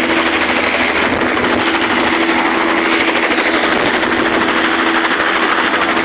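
Helicopter engine and rotor running steadily during flight, a loud continuous noise with a fast, even pulsing.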